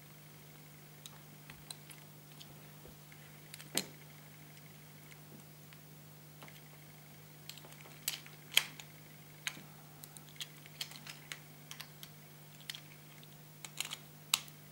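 Scattered small clicks and taps of Beyblade Zero-G parts (metal and crystal wheels, plastic track and tip, face bolt) being handled and fitted together into a spinning top. The clicks are irregular and loudest about 4 s and 8.5 s in, over a faint steady hum.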